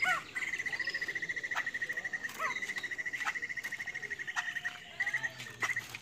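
White-crested laughingthrush (poksai jambul) calling: a long, fast, even trill of rapid notes held for about five seconds, after a few short calls at the start.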